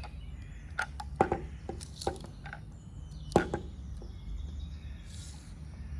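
Tape measure being handled: a scattered series of light clicks and knocks, the loudest about three and a half seconds in.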